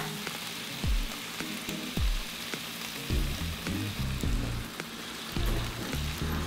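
Sliced meat and vegetables sizzling steadily in a hot wok as they are stir-fried with a wooden spatula. Background music with a low thumping beat plays under it.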